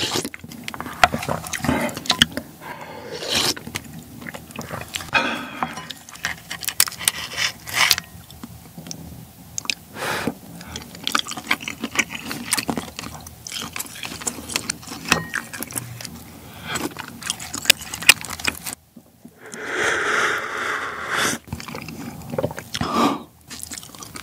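Close-miked eating of ramen with black tiger shrimp: wet chewing with many short mouth clicks and smacks, and noodle slurping. About 20 seconds in comes a longer, louder noisy stretch lasting around two seconds.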